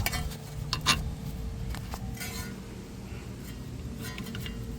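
A few short metallic clinks and rattles of hand tools and brake hardware as the brake line and caliper are being disconnected.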